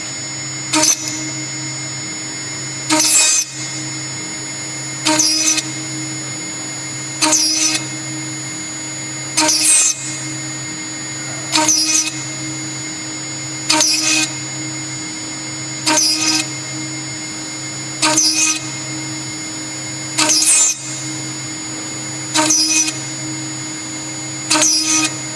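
CNC router spindle running with a steady whine while drilling a row of small holes in a metal bar with a thin bit. Each time the bit plunges into the metal there is a short, harsh burst of cutting noise, about every two seconds.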